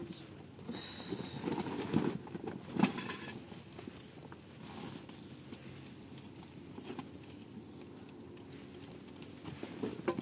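Rustling and knocks of someone moving about and handling things, with the sharpest knocks about two and three seconds in and a brief high squeak about a second in.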